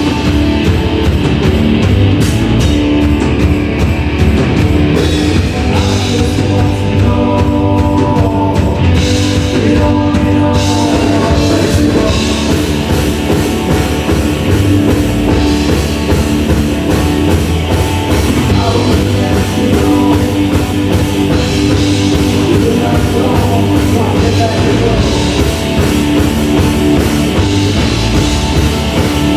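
A rock band playing live: drum kit, guitars and bass, loud and steady.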